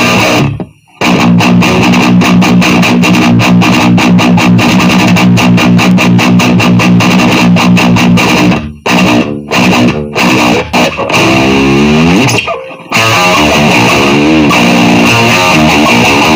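Electric guitar heavily distorted through the Solar CHUG distortion pedal into a Marshall cabinet, played as fast palm-muted chugging riffs with a few abrupt stops. Later come ringing notes with bends that glide up and down in pitch.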